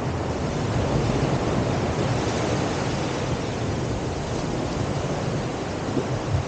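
Steady wind buffeting the microphone over the wash of waves on open water.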